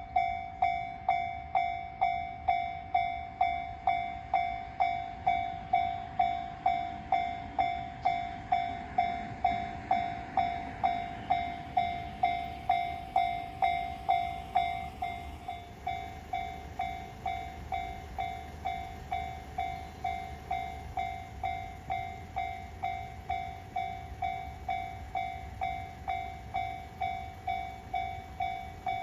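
Railway level-crossing warning bell ringing, a pitched electronic clang repeating a little under twice a second, with a train running past around the middle; the bell drops in level about halfway through.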